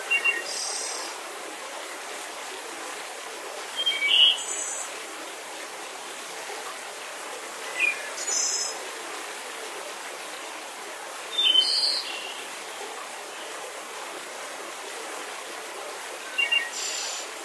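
Bird calls over a steady hiss. Five calls come about every four seconds, each a short high chirp followed by a louder, slightly longer call.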